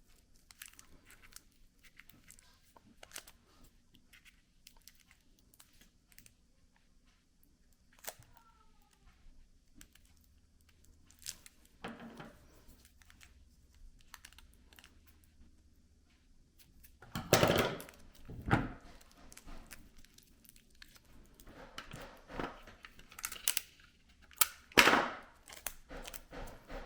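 Hand-handling noises as a LiPo battery pack is wrapped: scattered light clicks and taps, and crinkling and tearing of the wrapping material. There are louder rustling bursts about 17 to 19 seconds in and again around 25 seconds.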